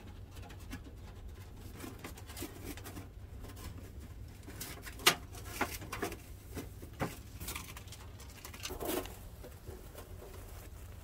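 Telescoping titanium wood-stove pipe being handled and extended, its metal sections sliding and clinking in scattered clicks and knocks, the loudest a sharp knock about five seconds in.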